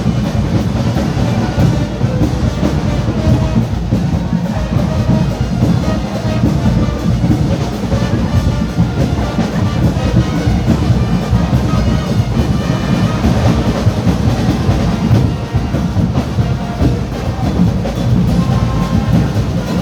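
Loud carnival music driven by drums, with a steady pounding beat.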